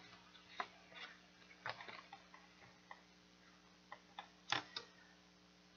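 Soft scattered ticks and paper rustles from handling a cardstock signature and cardboard cover while sewing them with needle and thread, with the sharpest pair of clicks about four and a half seconds in.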